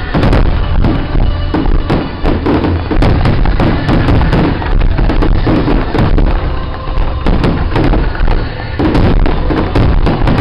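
Aerial fireworks bursting in rapid succession: a loud, unbroken run of overlapping bangs and crackling from many shells going off at once.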